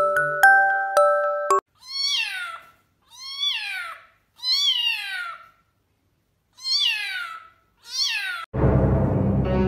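A kitten meowing five times, high-pitched meows that fall in pitch, about a second apart. A few tinkly music notes come before the first meow, and a louder, dense sound cuts in near the end.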